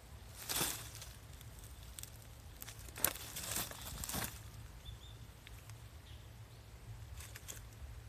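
A few crunchy footsteps or rustles in dry forest-floor litter, about half a second in and again around three to four seconds in, over a steady low hum. The uploader attributes this kind of noise to bringing the smartphone close to the trees.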